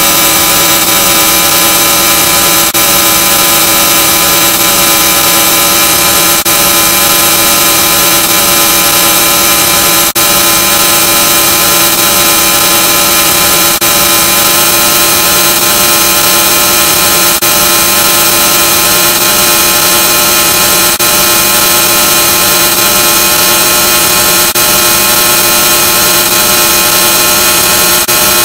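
Loud, heavily distorted electronic buzzing drone from effects-processed audio: many steady tones stacked over a dense hiss. It dips briefly about every three and a half seconds, like a short loop repeating.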